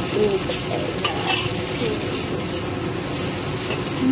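Noodles sizzling in a hot wok while a metal spatula stirs and scrapes them around the pan, with a few clicks of metal on metal.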